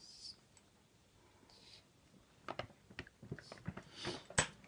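Light clicks and clinks of a child's toy tea set, the teapot and cups knocking together as they are handled. The clinks come thick and fast in the second half, with the loudest one near the end.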